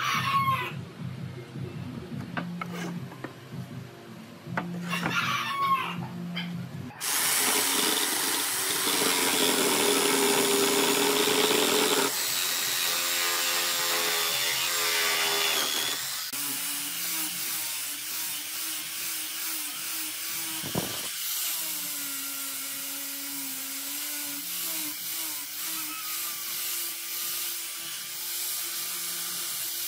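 A rooster crows twice. About seven seconds in, a jigsaw starts cutting through a wooden board, and from about sixteen seconds an angle grinder fitted with a sanding disc runs steadily with a held whine as it rounds off the end of a board.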